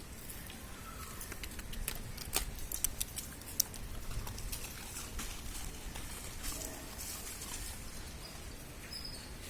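Hungry puppies eating: a run of small wet clicks, smacks and patters, thickest a couple of seconds in, with a faint squeak or two.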